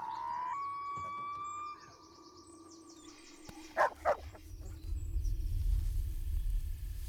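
Birds chirping, then a German shepherd barks twice in quick succession about four seconds in, followed by a low rumble.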